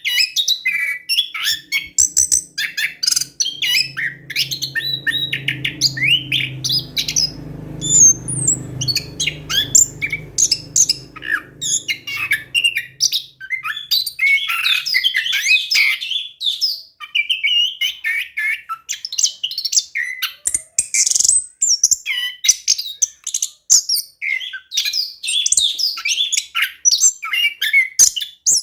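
Orange-headed thrush singing a fast, continuous rolling song of varied high chirps and whistles, with only a short lull about two-thirds through.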